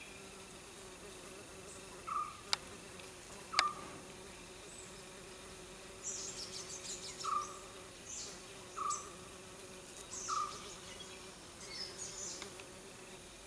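A steady insect drone, with short scattered chirps and two sharp clicks a couple of seconds in.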